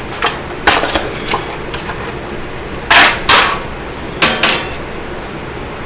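Metal non-stick baking sheets clanking against each other as they are pulled apart and handled: a string of sharp, ringing metallic knocks, the loudest about three seconds in.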